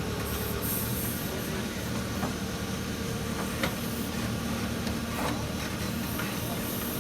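Case 770FX backhoe loader's diesel engine running steadily under work, with a few sharp clanks from the machine.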